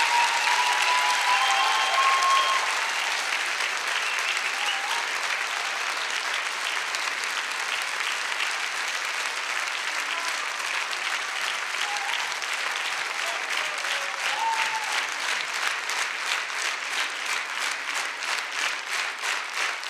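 Theatre audience applauding a folk dance ensemble. In the last few seconds the clapping falls into an even rhythm, in unison.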